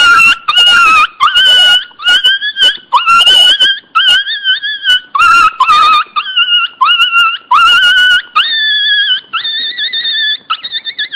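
Puppy crying loudly: a rapid string of high-pitched whining cries, each rising at the start and then held. The cries grow longer, about a second each, in the later part.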